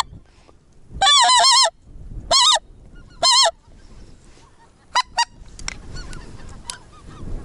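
Geese honking: a close, loud run of honks about a second in, two more short bursts soon after, then fainter honking from many birds, as of a flock calling on the approach.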